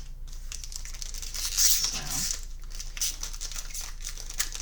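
Thin plastic crinkling and rustling as trading cards and their packaging are handled, a dense crackle that is loudest about one and a half seconds in.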